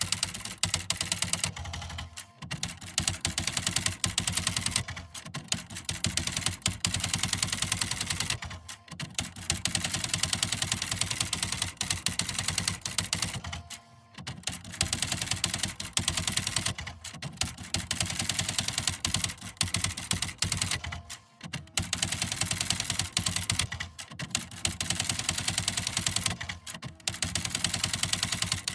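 Electric typewriter being typed on: rapid, continuous key strikes over the machine's steady motor hum, in runs broken by brief pauses every few seconds.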